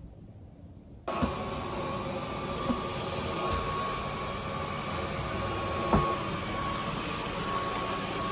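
Dyson cordless stick vacuum switching on about a second in and running with a steady rushing whine. A few knocks come through, the sharpest about six seconds in.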